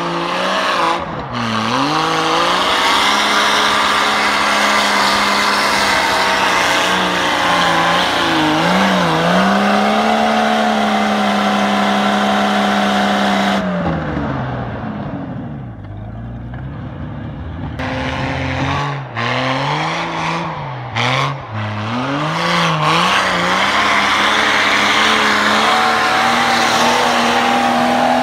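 Jeep Cherokee's 4.0-litre straight-six revving hard under load while its tyres spin in snow. The revs hold high, sag about halfway through, are blipped up and down several times, then hold high again near the end.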